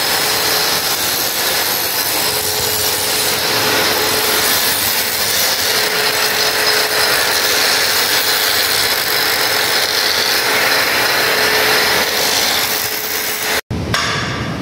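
Angle grinder with an abrasive cut-off disc cutting through steel rebar: a steady harsh grinding hiss over a constant motor whine. It cuts off abruptly near the end.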